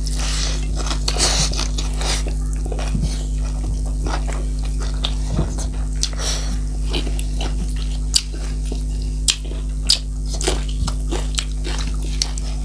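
Close-up eating sounds: chewing and biting of a meal of dried meat with pumpkin, with scattered short wet mouth clicks. A steady low hum runs underneath.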